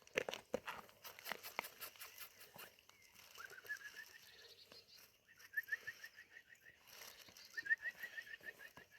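A bird giving three runs of quick, short, repeated chirps, faint. It is preceded by scattered light knocks and clicks in the first couple of seconds.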